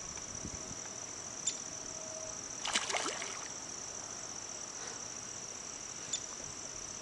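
Steady high-pitched chorus of crickets, with a short splash about three seconds in as the hooked catfish swirls at the surface of the pond.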